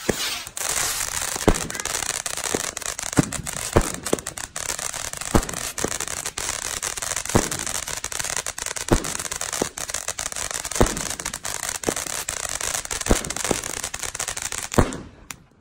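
A ground firework cake hissing and crackling steadily as it sprays a fountain of sparks, with a sharp bang about once a second as it fires shots that burst overhead. It stops suddenly just before the end.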